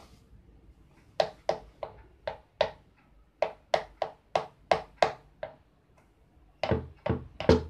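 A spoon stirring mashed banana into warm water in a bowl, clicking against the side in a regular rhythm of about three knocks a second, with a pause of about a second partway through.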